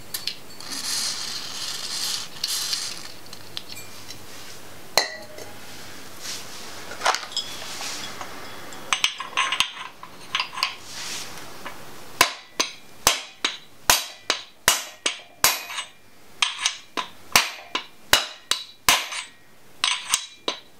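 A brief aerosol hiss of penetrating oil sprayed on the crankshaft snout and a few metal clinks as a steel installer sleeve is set on it. Then a hammer strikes the sleeve about twice a second, driving the crank timing sprocket onto the LS 5.3L crankshaft snout until it bottoms out.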